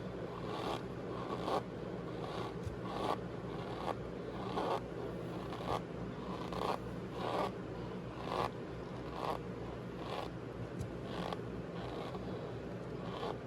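Cornstarch powder being squeezed, giving repeated short squeaky crunches at a steady pace of about one every three-quarters of a second.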